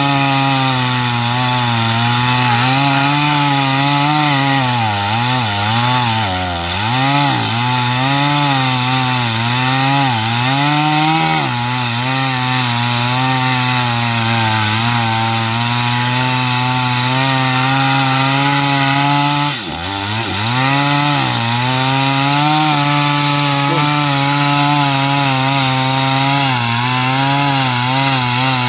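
Stihl MS 250 two-stroke chainsaw running at high speed and cutting wood. Its engine pitch sags under load several times in the first half and drops sharply once about two-thirds through, each time recovering.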